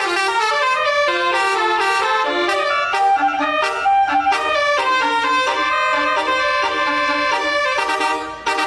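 Telolet basuri multi-tone bus air horn playing a quick melody, several horn notes sounding together and changing pitch every fraction of a second, with a brief dip near the end.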